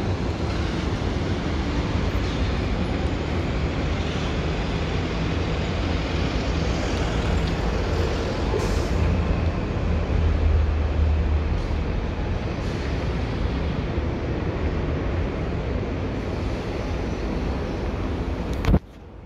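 CPTM electric commuter train running past on the track, a steady rumble with a deep low hum that swells about halfway through. The noise cuts off suddenly near the end.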